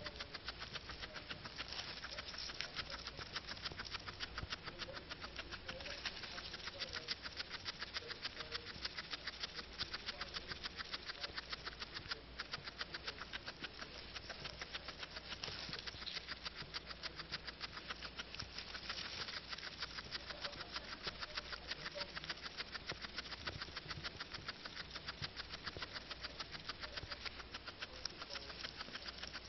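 Guinea pig chewing grass: a rapid, steady run of loud crunching bites.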